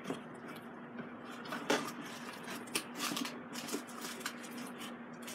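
Plastic wrapping and cardboard rustling and crinkling in short, irregular bursts as parts are pulled out of a box.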